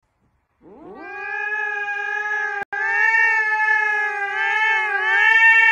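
A cat's long, drawn-out yowl: it slides up in pitch at the start and is then held at a near-steady pitch, broken once for a split second near the middle and wavering slightly toward the end.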